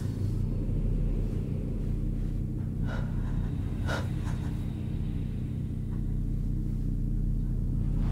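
A low, steady droning hum, with two short breathy sounds about three and four seconds in.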